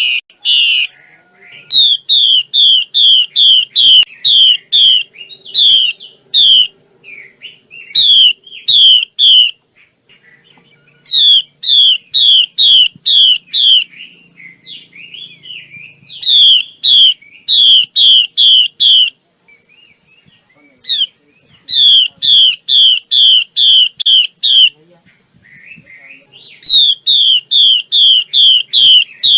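Female Chinese hwamei calling: runs of sharp, downward-slurred notes, about three a second, in bursts of a few seconds with short pauses between.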